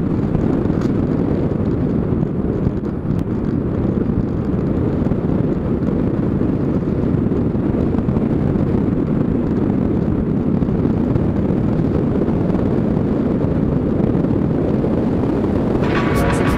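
Wind rushing over the microphone of a camera mounted on an RC flying wing in flight: a steady, low rumble. Music starts near the end.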